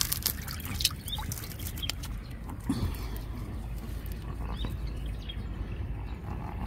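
Outdoor ambience by a stream: a few short, high bird chirps over a steady low rumble, with some sharp clicks in the first two seconds.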